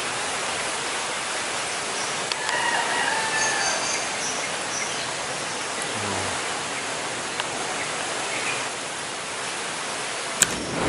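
Steady outdoor hiss with faint whistled bird calls a few seconds in, and one sharp click near the end.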